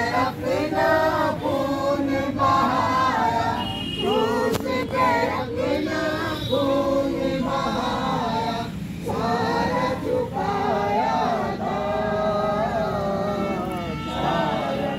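A small congregation of men and women singing a hymn together from hymn books, unaccompanied.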